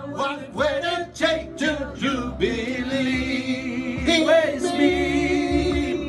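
A group singing a song together, a man's voice leading, with long held notes in the second half.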